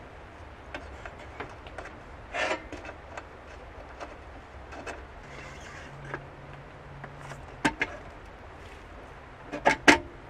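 Handling sounds of metal hurricane oil lanterns on a wooden counter: small scattered knocks and clicks, a short scrape, a drawer sliding open about halfway through, and a few sharp metal clanks near the end as a lantern is lifted.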